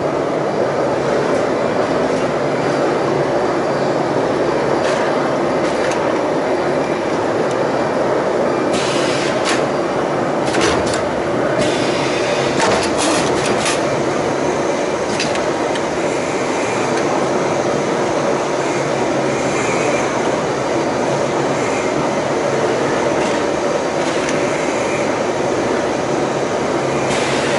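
Pneumatic 2D wire bending and butt welding machine at work: a steady mechanical running noise, with sharp clacks from its clamps and bending heads and a spell of air hiss about nine to twelve seconds in.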